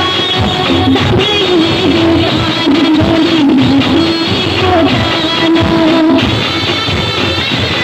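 Music with guitar and a wavering lead melody line that drops out about six seconds in, leaving held chords.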